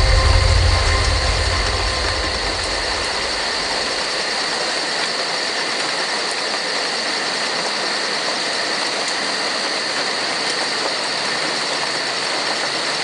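Steady rain falling, an even hiss with no rhythm. The deep low end of a song fades out over the first two seconds or so.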